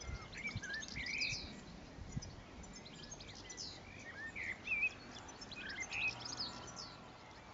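Small songbirds chirping and twittering, many short calls and quick warbling notes scattered throughout, with a few soft low knocks of handling noise near the start.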